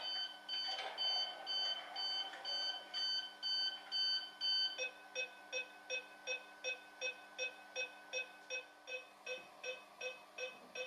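Electronic warning beeps from the sound decoder of a PIKO ICE 4 H0 model train, played through its small speaker. A steady beep about two and a half times a second switches, about five seconds in, to a quicker beep of about three a second in a different tone. A faint steady whine and hum run underneath.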